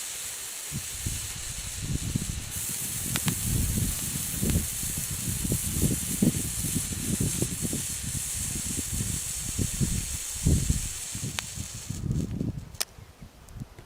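Hand-held colour fountain firework hissing steadily as it sprays sparks, with a few sharp crackles, then cutting out near the end as it burns out. Irregular low rumbling runs underneath.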